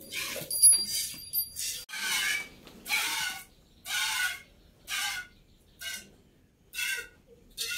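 Milk squirting from a cow's teats into a stainless-steel pot during hand milking, in regular spurts about once a second. A few ringing metallic clinks sound in the first second and a half.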